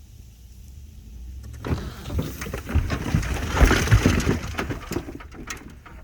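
A low engine rumble, then from about a second and a half in a 1997 Jeep Grand Cherokee (ZJ) being pulled over onto its side by rope: several seconds of crunching and banging of the body as it tips and lands, loudest around the middle and dying away near the end.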